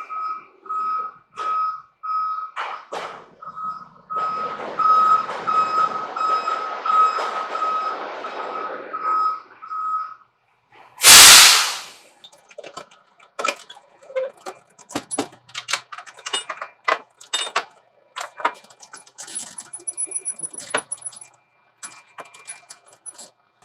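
Vehicle back-up alarm beeping about twice a second over engine noise. It stops about ten seconds in and is followed by a sudden loud hiss-like burst lasting about a second, then scattered clicks and knocks.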